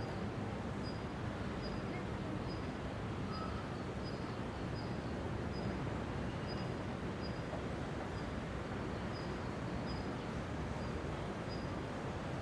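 A bird repeating short, thin high-pitched notes about once every two thirds of a second, over a steady low background noise.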